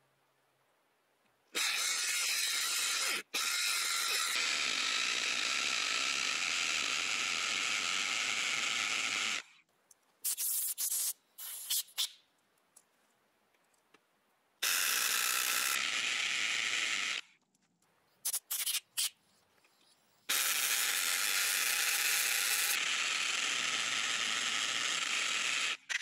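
Corded hammer drill boring into a concrete footing: three long runs of several seconds each, with short stop-start bursts of the trigger between them.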